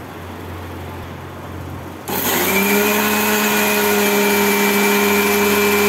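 Electric kitchen mixer-grinder switched on about two seconds in, its motor spinning up quickly to a loud, steady whine as it grinds dry-roasted whole spices to a fine powder.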